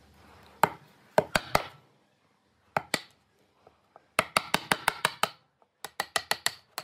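Steel wood chisel chopping out a mortise between drilled holes in a board: sharp clicking taps, a few single ones and then two quick runs of about eight a second.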